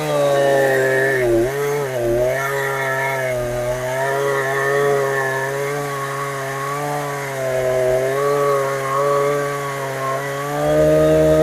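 Chinese clone of a Husqvarna 372XP two-stroke chainsaw, fitted with a genuine carburettor, running at high revs while cutting wood. The engine pitch dips sharply twice early on, then wavers as the chain is loaded in the cut.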